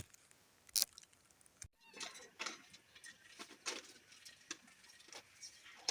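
Faint rustling of leaves with scattered light snaps and clicks, kale leaves being handled. There is a sharp click at the start and another just under a second in, then a run of irregular small rustles from about two seconds in.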